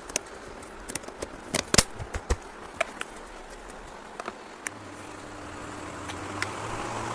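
Irregular sharp clicks and knocks of parts and tools being handled in fan assembly work, then a steady low hum starts about two-thirds of the way through and slowly grows louder.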